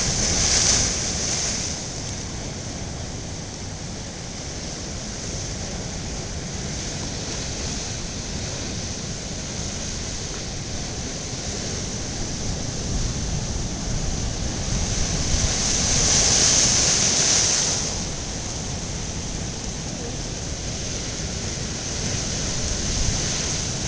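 Heavy storm surf breaking and washing in, with wind rumbling on the microphone. Two louder surges of hissing wash come about a second in and again around sixteen seconds in.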